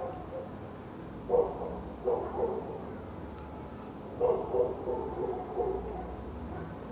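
A dog barking in short clusters of a few barks each, with pauses between.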